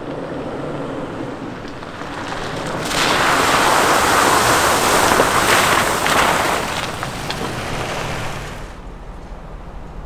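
Off-road SUV driving over a rocky gravel trail, with a low engine hum under the crunch and rush of tyres on gravel and stones. The crunching swells loud about three seconds in, with a few sharp stone pops, and fades near the end.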